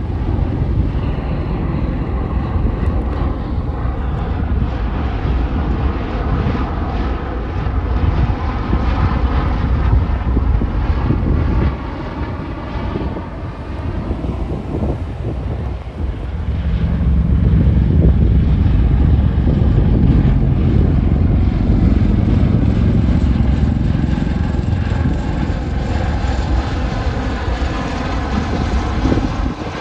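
Marine One helicopters flying past: a heavy rotor rumble with engine tones that bend in pitch as they pass. It eases a little about halfway through, then grows loudest in the second half.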